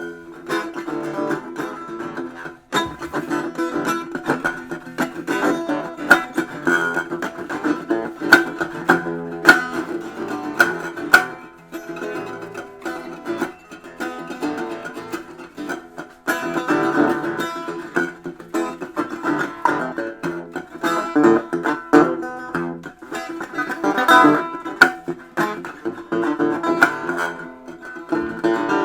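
A plucked string instrument played in a dense, quick run of picked notes without a break.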